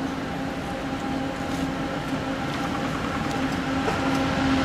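Steady machine-room drone from a data center's server racks and Liebert air-conditioning units: a constant hum with one clear tone and its overtones over a broad rush, growing a little louder near the end.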